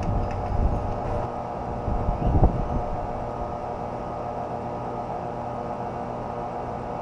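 Steady low mechanical hum, with low knocks in the first second and a single thump about two and a half seconds in.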